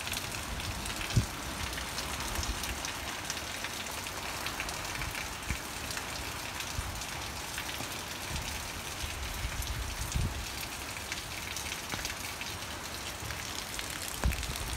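Steady rain falling, an even hiss throughout, with a few brief low thumps about a second in, around ten seconds in and near the end.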